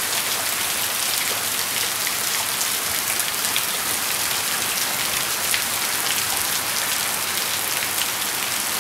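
Heavy rain pouring steadily, a dense, even hiss full of sharp ticks from individual drops.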